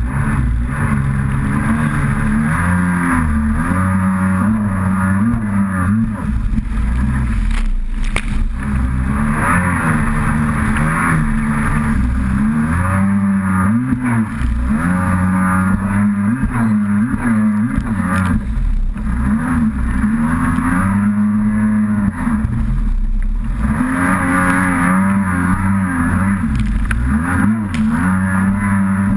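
Kawasaki SXR800 stand-up jet ski's two-stroke twin engine running hard, its pitch rising and falling again and again with the throttle through turns, over the rush of water and spray against the hull.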